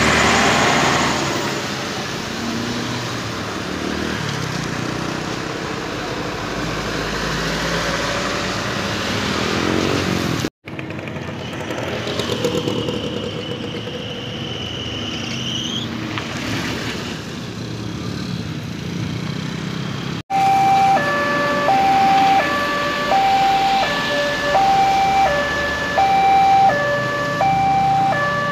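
Road traffic on a wet road: cars, minibuses and motorbikes driving over a railway level crossing, with tyre hiss. About two-thirds of the way in, the level crossing's warning alarm starts. It is a loud repeating two-note electronic alarm that steps between a higher and a lower pitch about once a second, and it signals that a train is approaching.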